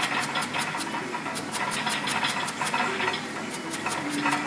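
Chef's knife rapidly chopping leafy herbs on a plastic cutting board: quick, even taps of the blade on the board, about five a second, over a steady mechanical hum.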